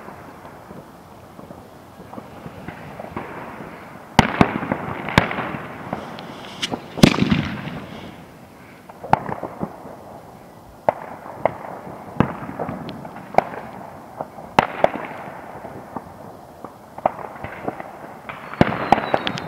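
Fireworks and firecrackers banging irregularly, a dozen or so sharp cracks over a steady background hiss. The loudest bang comes about seven seconds in and echoes.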